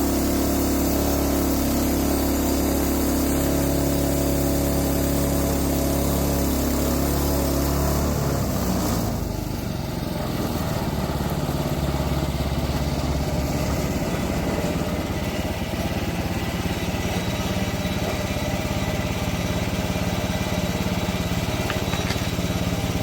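Small gasoline engine of a Frontier portable bandsaw sawmill running steadily while it mills red oak. About eight seconds in, the sound dips briefly and changes to a rougher, less even running that continues to the end.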